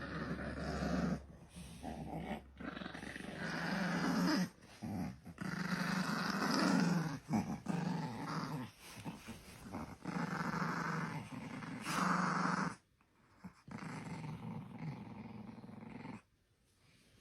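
A dog growling in long, rumbling bouts of one to three seconds with short breaks between. The growling drops off about three-quarters of the way through, comes back more quietly, then stops near the end.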